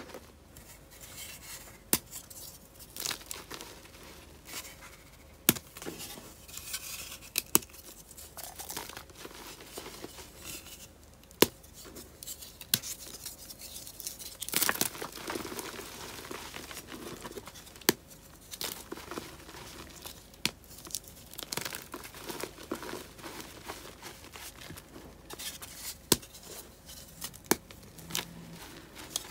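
Moulded blocks of reformed gym chalk being snapped and crushed by hand in a bed of chalk powder: dry, crunchy crumbling broken by a dozen or so sharp cracks as pieces break off, with a longer crunchy spell about halfway through.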